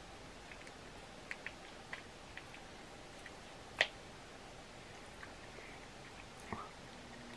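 Faint clicks and crackles of a boiled crab leg's shell being cracked and peeled by hand, with one sharper snap about four seconds in.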